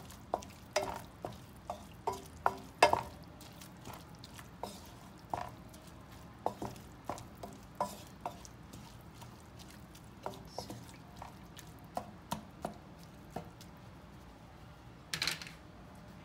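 Wooden spatula stirring minced chicken in a nonstick frying pan, knocking and scraping against the pan in irregular sharp taps, about one or two a second, thinning out in the second half.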